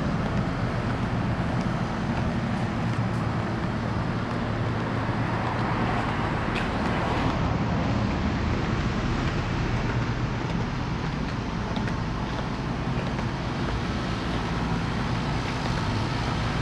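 Wind blowing across the microphone, a steady low rumble with no let-up.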